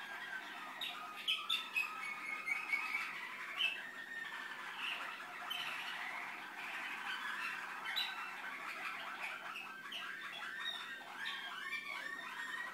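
Malinois (Waterslager) canary singing a continuous song of rolling, warbling phrases, with a run of fast repeated notes near the end.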